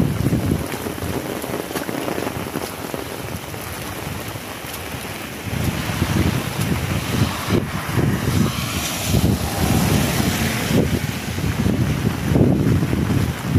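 Heavy rain falling, with wind buffeting the microphone in low, gusty rumbles that pick up about five seconds in.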